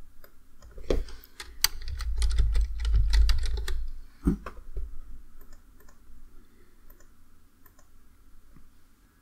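Typing on a computer keyboard: a quick run of key clicks lasting about three seconds, then one louder click, then a few faint scattered clicks.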